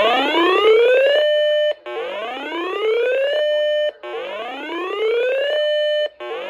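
Weather radio receiver's electronic alert siren: a rising whoop that climbs for about a second and a half, holds briefly at the top, then repeats about every two seconds. It signals an incoming weather warning.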